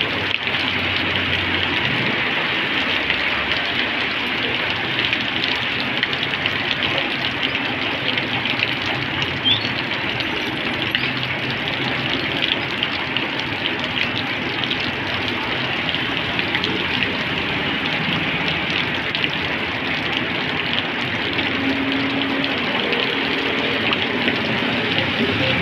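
Heavy tropical rain falling on a flooded asphalt road: a steady hiss with dense pattering of drops on the water. Motor scooters passing through the standing water add a low engine hum now and then.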